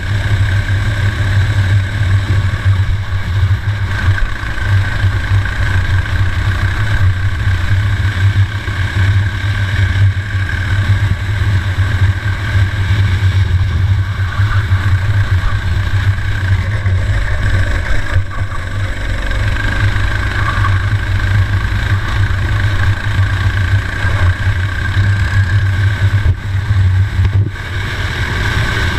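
Racing kart engine heard on board at race pace, running continuously, with its level wavering as the throttle opens and closes through the corners.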